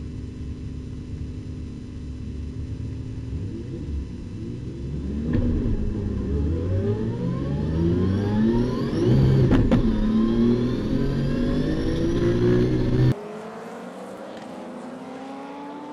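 Inside the cabin of a Nissan R32 Skyline with a twin-turbo RB26 straight-six: the engine idles at a standstill, then revs rise and the pitch climbs repeatedly as the car pulls away among other race cars. About 13 seconds in, the sound cuts abruptly to a quieter trackside recording of race-car engines.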